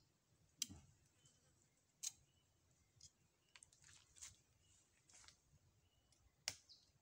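Faint, scattered clicks and taps of a bolo knife's blade working at a palm trunk, about five over several seconds, the sharpest near the end.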